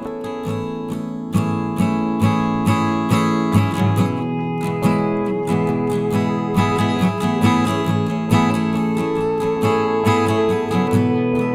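Background music: a strummed acoustic guitar playing steadily with a regular beat.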